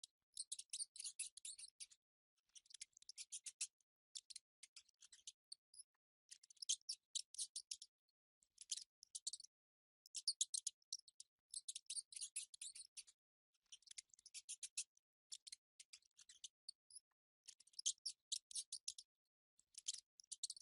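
Mice squeaking: rapid trains of high, thin squeaks in bursts of one to two seconds, separated by short silences.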